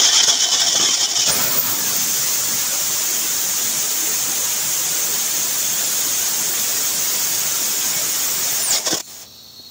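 Homemade liquid-fuel rocket engine firing: a loud, steady rushing hiss of exhaust from its convergent-divergent nozzle, shriller in about the first second, that cuts off suddenly about nine seconds in.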